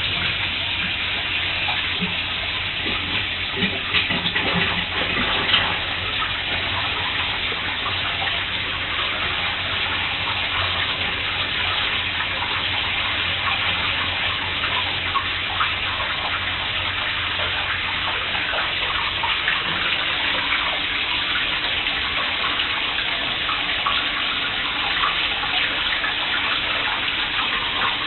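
Water running from a tap into a bathtub: a steady rush that holds at the same level, with small splashes.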